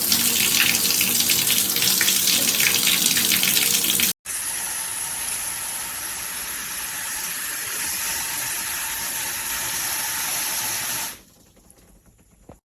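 Water spraying and splashing from a handheld shower head, loud at first. After a split-second break about four seconds in it runs softer and steadier, then stops about eleven seconds in.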